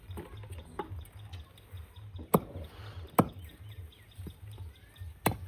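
Three sharp knocks, irregularly spaced about one to two seconds apart, with lighter ticks between them, over a low pulsing hum.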